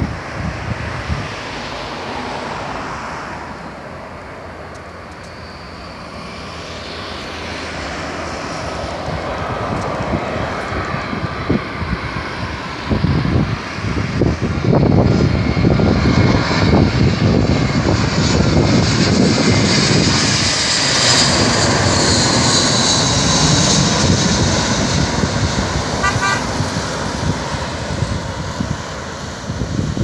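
Airbus A320-232 on landing approach, its IAE V2500 turbofans growing louder as it comes in and passes overhead. At its loudest there is a high engine whine that slides down in pitch, then the noise eases off. Wind gusts on the microphone as it passes.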